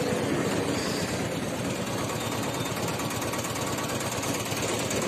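A vehicle engine idling close by, a steady, rapid clattering beat.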